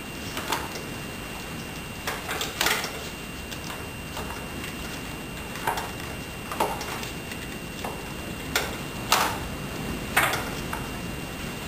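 Scattered light clicks and knocks of hand tools and metal parts being handled on a motorcycle, coming irregularly about once every second or so, over a steady hiss with a faint high whine.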